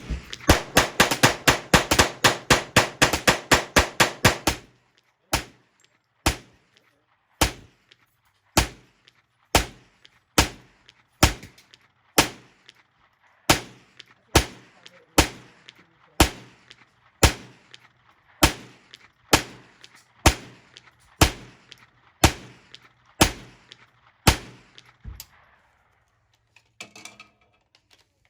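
Ruger 10/22 semi-automatic .22 rimfire rifle firing, first a fast string of shots for about four and a half seconds, then steady single shots about one a second. The shots stop a few seconds before the end.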